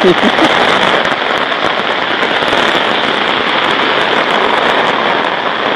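Steady rain, an even hiss thick with the small ticks of individual drops.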